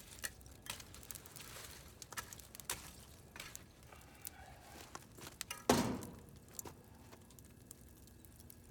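Wood stove fire crackling, with scattered small pops and one louder knock about six seconds in.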